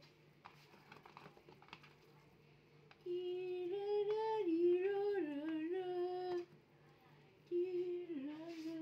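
A woman humming or singing a wordless tune. One phrase of held, wavering notes starts about three seconds in and lasts about three seconds, then a second phrase begins near the end and slides downward.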